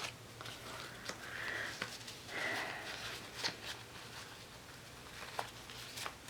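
Two soft sniffs, about a second and two and a half seconds in, with a few light clicks of paper sticker sheets being handled.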